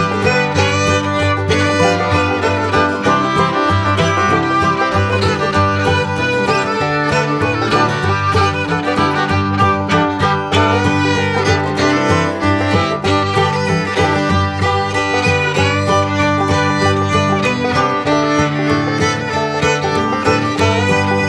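Background music: an upbeat bluegrass-style tune with fiddle and banjo over a steady beat.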